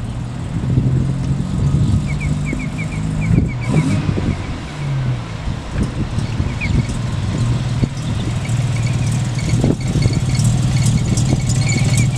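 Turbocharged, street-ported 13B-REW rotary engine of a 1976 Mazda pickup running as the truck is driven up. Its pitch rises and falls about four to five seconds in, then it settles into a steady note for the last few seconds.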